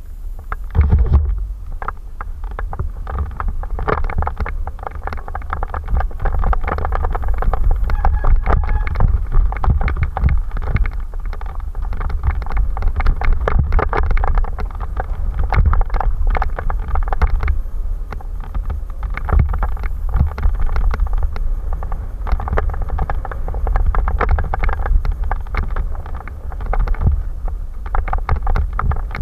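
Mountain bike descending a bumpy dirt trail at speed, heard from an onboard camera: wind buffeting the microphone as a constant low rumble, with continual rattles and knocks from the bike over the bumps.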